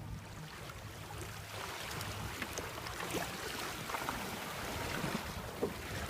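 Sea water splashing and rushing along a sailboat's hull under way, with many small splashes and a low rumble that fades in the first couple of seconds.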